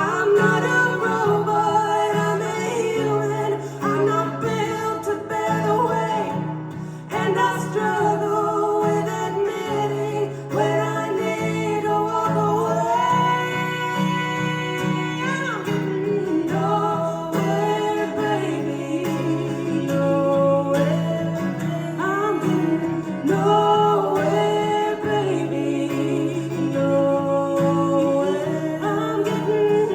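Live acoustic music from a country-folk song, with guitar playing and singing.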